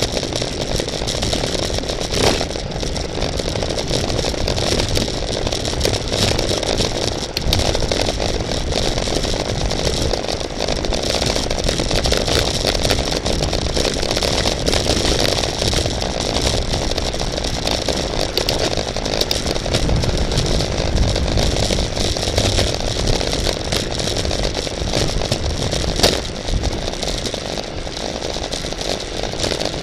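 Steady wind rush and road noise on a bicycle-mounted camera riding in a road race, with rattling from the bike and two sharp knocks, one about two seconds in and one near the end.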